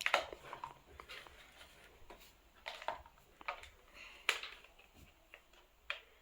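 Irregular light clicks and taps of hands handling a plastic remote-control stunt car while opening its battery compartment. The sharpest clicks come just at the start and about four seconds in.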